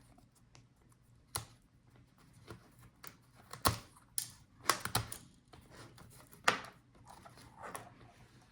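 Scattered sharp clicks and light taps, about eight at irregular intervals, from small plastic laptop parts and a tool being handled as the speaker modules of a Dell Latitude 5410 are removed and their cable unplugged.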